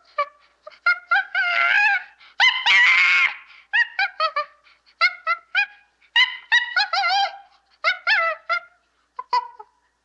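A chimpanzee calling: quick bursts of three or four short, high-pitched hoots, with two longer drawn-out calls between about one and three and a half seconds in.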